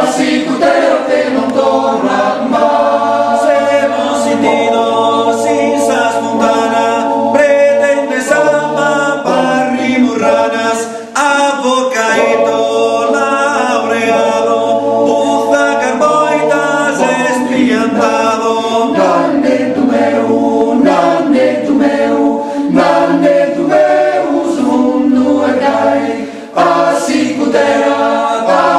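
Choir of men's and women's voices singing a cappella in several-part harmony, in Sardinian, with brief breaks between phrases about eleven seconds in and near the end.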